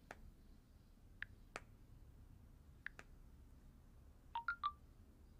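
Faint smartphone taps: a few scattered single clicks as the screen is touched and scrolled, then three quick short blips close together near the end.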